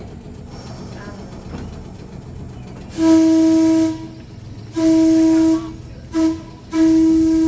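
Electric trolley's air horn sounding four blasts, two long, one short and one long: the standard signal for approaching a grade crossing. Under it the car's low running rumble goes on.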